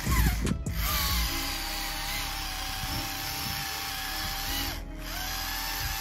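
The small electric drive motor of a remote-control model tractor whines steadily as it drives, after a few knocks at the start. It cuts out briefly near the end and winds up again.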